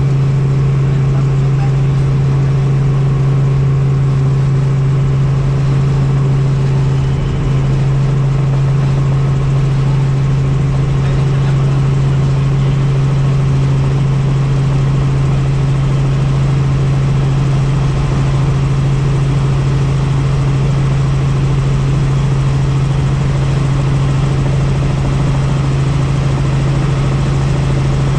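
Helicopter in flight: a loud, steady drone of rotor and engine, with a strong deep hum that holds one pitch.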